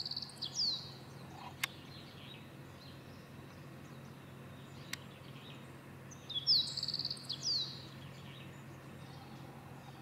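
A small bird singing a short, high trill with quick falling notes, once at the start and again about six and a half seconds in, over a steady low hum.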